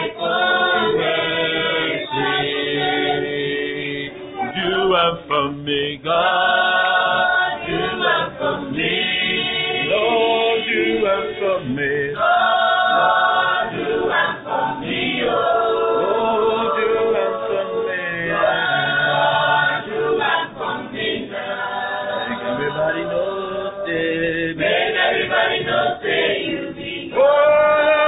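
Mixed group of men and women singing a cappella in harmony, in phrases of held notes with short breaks between them.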